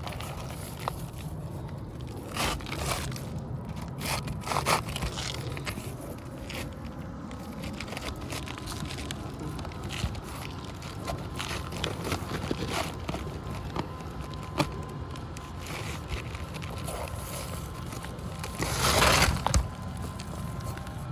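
Brittle asphalt shingles scraping and crackling as a replacement shingle is worked in under the old ones, with a louder rasp lasting about a second near the end.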